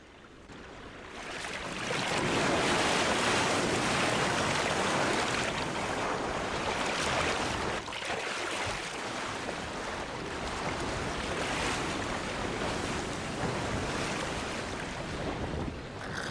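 Steady rushing noise of water and wind, fading in over the first two seconds and then holding even.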